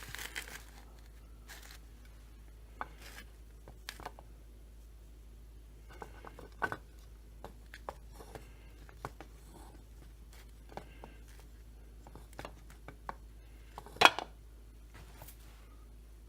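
Scattered light clicks, taps and knocks of chainsaw crankcase parts being handled during assembly, with a louder knock about 14 seconds in.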